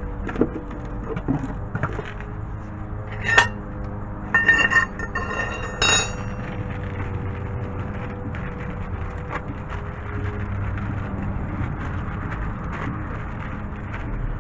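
Small metal parts clinking: scattered light clicks, then a cluster of sharp, ringing metallic clinks from about three to six seconds in, over a steady faint hum.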